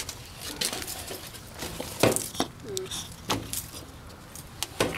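A dog sniffing and snuffling hard at close range, a few short sharp sniffs spread out, with a brief faint squeak about halfway through.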